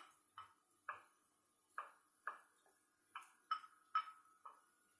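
Wooden spatula knocking against a small ceramic bowl, about a dozen light, irregular clinks that each ring briefly, as minced shallots are knocked out of the bowl into a frying pan.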